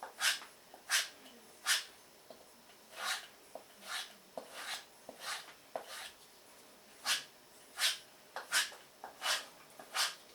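Spyderco Delica 4 knife blade being stroked along a compound-loaded strop: short swishes about one every 0.7 seconds, in three runs with brief pauses between them.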